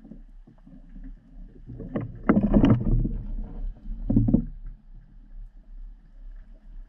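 Muffled underwater water noise around a camera, with a loud churn of knocks and sloshing about two seconds in and a shorter one about four seconds in.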